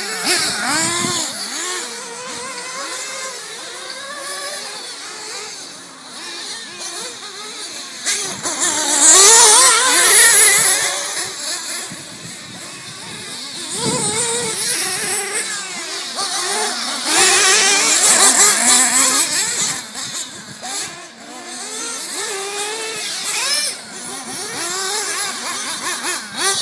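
Several small gas- and nitro-powered RC race car engines racing together, revving up and down in a high whine. The sound swells loudest twice, about nine seconds in and again around seventeen seconds, as the cars pass close.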